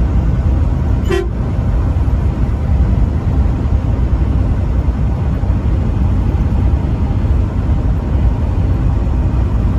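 Truck driving with a steady low road and engine rumble, and one very short toot of its horn about a second in.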